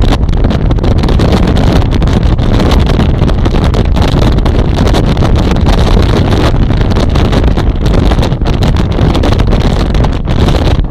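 Loud, steady wind buffeting a phone's microphone from inside a moving car, with rumble from the car over the road underneath.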